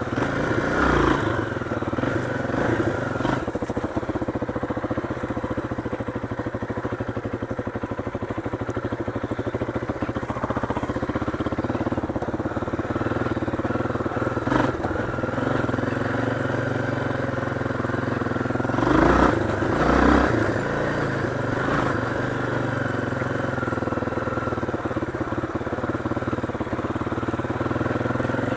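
Motorcycle engine running steadily under way on a dirt trail, with a couple of loud thumps about two-thirds of the way in as the bike goes over bumps.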